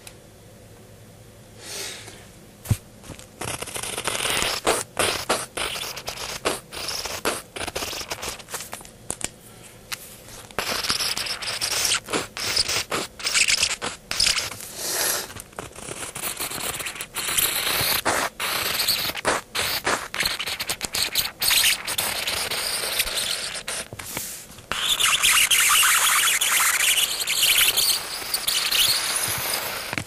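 Mechanical pencil loaded with squeaky lead scribbling back and forth on lined notebook paper, a scratchy squeaking with each stroke, picked up by a microphone lying on the page. It starts about two seconds in and gets louder and denser near the end.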